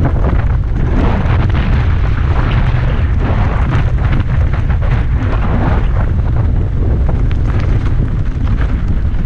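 Heavy wind buffeting on the microphone as a mountain bike runs fast down loose gravel, with the crunch and rattle of the tyres and bike over the stones underneath.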